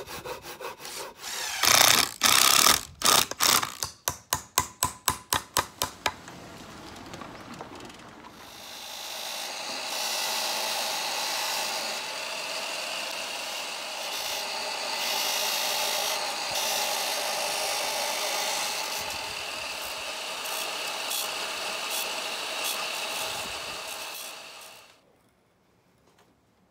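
Rhythmic scraping strokes, loud at first and then about three a second, like sawing. From about eight seconds they give way to a steady whirring noise that cuts off abruptly near the end.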